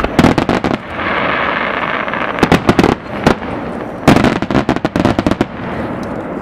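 Aerial fireworks shells bursting, with clusters of rapid sharp cracks and bangs. A steady hiss runs from about a second in, followed by more cracks around three seconds and a dense burst of crackling reports around four to five seconds.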